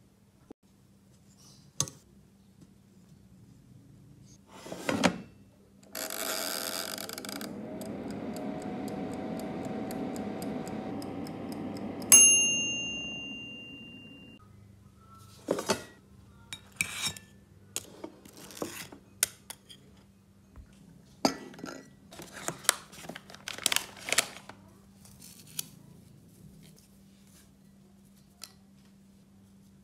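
A small countertop kitchen appliance runs with a steady hum for about six seconds, then its timer bell dings once and rings out. Light clinks and taps of a plate, chopsticks and dishes follow.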